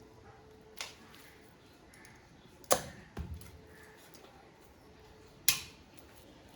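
Blade chopping through a large hilsa fish: four sharp chops, the loudest near the middle, followed by a duller knock, and another near the end.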